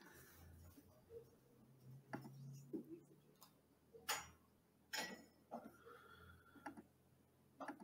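Near silence: room tone with several faint, short clicks or taps scattered irregularly through it.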